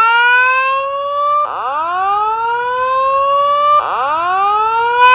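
Fire alarm voice-evacuation speaker sounding its rising whoop tone, the building's evacuation signal: each sweep climbs in pitch for a little over two seconds and then starts again.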